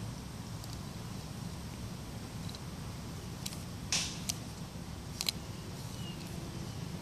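Light clicks and a short rustle from plastic toys being handled, the rustle about four seconds in being the loudest, over a steady low background rumble.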